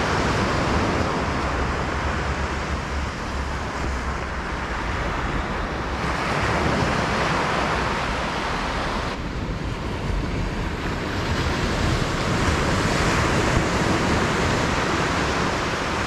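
Steady wash of sea surf on a beach, with wind rumbling on the microphone.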